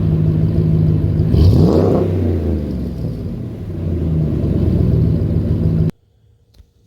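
Ram 1500's HEMI V8 running through an MBRP 2.5-inch cat-back exhaust, idling with a throttle blip about a second in that rises and falls in pitch. It cuts off suddenly near the end.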